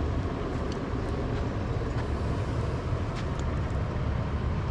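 Campfire burning, with a few faint crackles over a steady low rumble.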